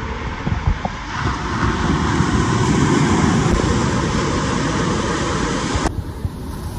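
Surf on a sandy beach: small waves breaking and foam washing up the sand, swelling to a peak and easing off over a few seconds. About six seconds in the sound changes abruptly to a quieter wash.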